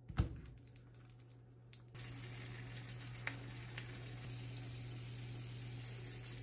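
Sausages frying in oil in a nonstick pan: a soft knock at the start, then a quiet patch with faint crackles, then from about two seconds in a steady low sizzle with the odd small pop.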